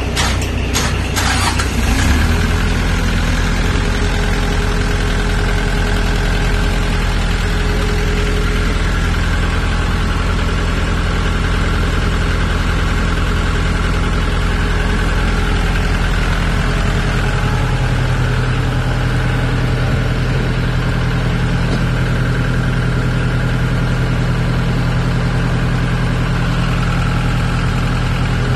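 Compact tractor's engine idling steadily, with a slight change in its note a little past halfway. A few light clicks come in the first two seconds.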